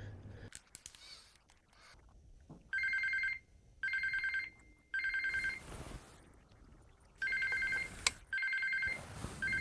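Telephone ringing with an electronic two-tone warble: three short rings, a pause, then three more. A single sharp click sounds between the rings near the end.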